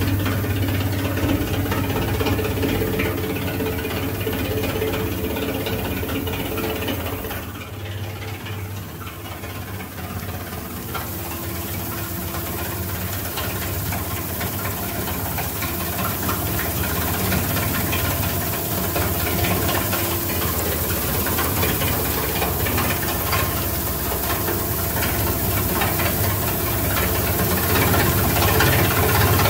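Single-shaft shredder running with a steady motor hum under a dense crackling rattle of aluminium can pull-tabs being cut and falling through the screen. The sound dips briefly about eight seconds in, then builds back.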